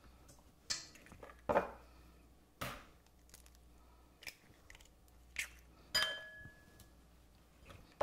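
Eggs being cracked against a bowl: about six short, sharp knocks and shell cracks a second or so apart, one about six seconds in ringing briefly like a tap on glass or china.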